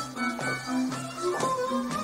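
Hungarian folk dance music for csárdás, with a steady alternating bass-and-chord beat.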